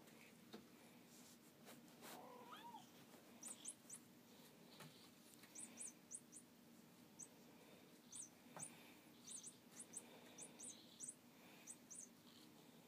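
A kitten gives one short, faint meow about two seconds in. After that, faint, very high, quick chirps come again and again in twos and threes.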